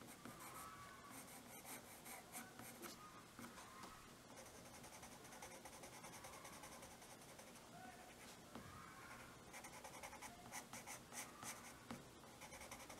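Soft graphite drawing pencil shading on drawing paper: faint, continuous scratching of many short strokes, a little busier near the end.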